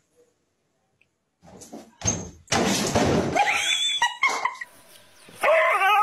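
A dog barking and whining, starting about a second and a half in, with a couple of sharp knocks about four seconds in.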